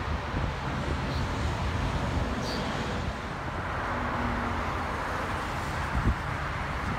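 Freight train of autorack cars rolling past: a steady low rumble of steel wheels on rails, with wind noise on the microphone and a few faint high squeaks.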